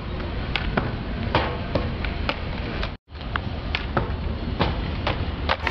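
Skate park ambience: skateboards rolling on concrete, with sharp clacks of boards hitting the ground roughly twice a second over a steady rushing noise. The sound cuts out for a moment about three seconds in.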